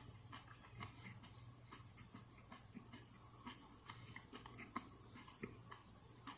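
Faint chewing of a raw superhot pepper pod: small, irregular wet clicks and crunches, over a faint steady low hum.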